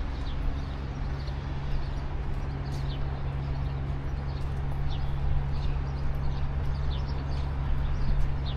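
Wet city street ambience: a steady low hum under a wash of noise, with short, high, falling chirps repeating every second or so.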